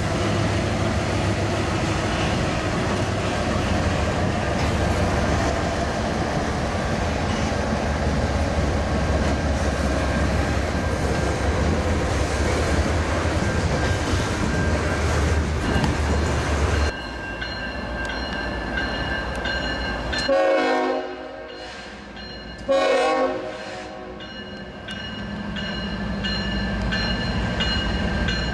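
A freight train rolling past, a steady rumble and clatter of wheels and cars. Then a diesel locomotive approaching sounds its horn in two blasts about two seconds apart, its engine growing louder near the end.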